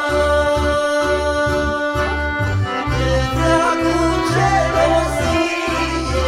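Romanian Christian song: music with a steady pulsing bass beat and held chords, and a singing voice.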